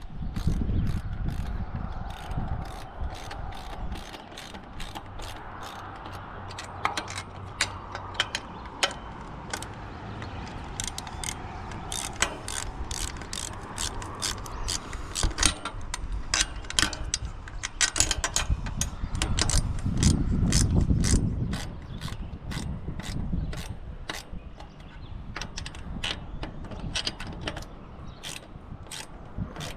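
Metal hardware being worked on an antenna's mast-mount bracket, U-bolt nuts and fittings clicking and ticking, irregularly a few times a second. Gusts of wind rumble on the microphone near the start and again about twenty seconds in.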